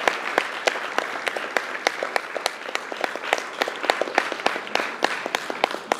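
Audience applauding, the clapping gradually thinning and getting quieter.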